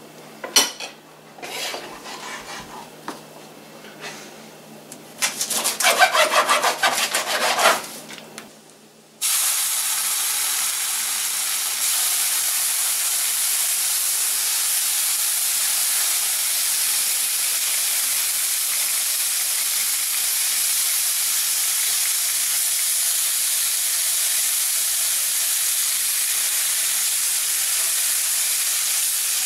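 Bacon strips sizzling steadily in a hot nonstick frying pan as they are laid in, starting abruptly about nine seconds in. Before that comes the crinkling and rustling of the plastic bacon package being handled and opened, loudest just before the sizzle starts.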